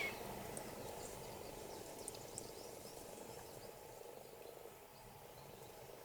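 A few short, faint, high chip notes from small birds in the first two and a half seconds, over a steady low background hum.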